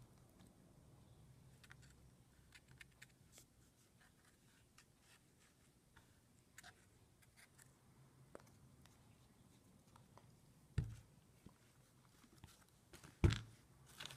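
Faint scattered ticks and light taps of small craft items being handled on a work surface, with two short, dull thumps near the end.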